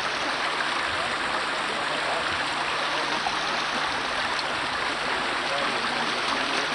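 Steady rushing noise at an even level, with no distinct knocks or clicks.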